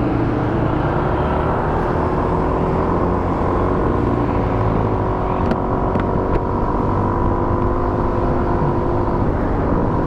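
Motor scooter engine running steadily while riding, under heavy wind and road noise.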